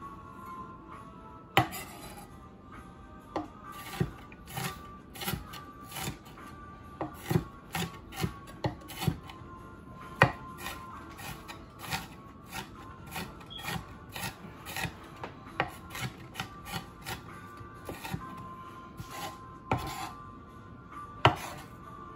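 Chef's knife chopping onion on a wooden cutting board: irregular knocks of the blade on the board, one or two a second, with the knife and onion pieces rubbing and scraping across the board.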